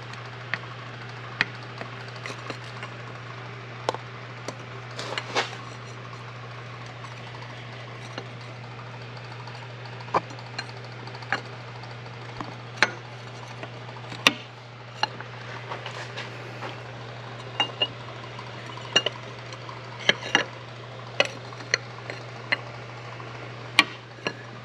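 Irregular metallic clinks and clicks of hand tools and metal parts being handled, over a steady low hum.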